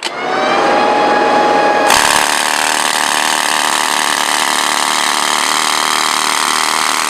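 A hammer drill spins up, then about two seconds in starts boring into the concrete sidewalk with a loud, steady hammering rattle, drilling anchor holes for a bike rack.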